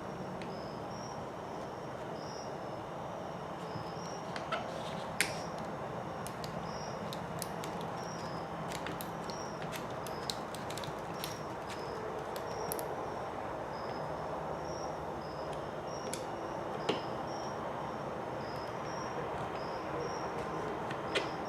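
Scattered small sharp clicks of small parts and a hand tool being handled while an RC car kit chassis is screwed together, most of them in the first half, over a steady background hiss. A faint high chirp repeats steadily about one and a half times a second throughout.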